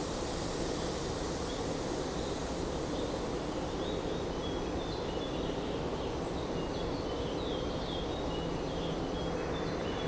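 Steady hum and rumble of a commuter rail station platform, with electric trains standing at the far platforms. Short high chirps come and go from about halfway through.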